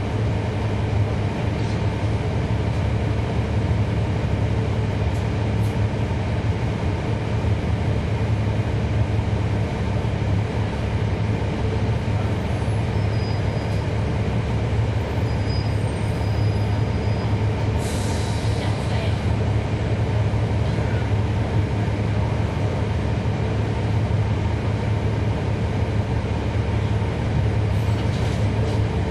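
Cummins ISL9 diesel engine of a 2011 NABI 40-foot transit bus running steadily, heard from inside the bus. There is a brief hiss about eighteen seconds in.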